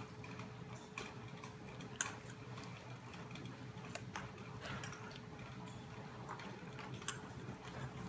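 Two Formosan mountain dog puppies eating from a stainless steel bowl: irregular light clicks and clinks of mouths and food against the metal, over a faint steady hum.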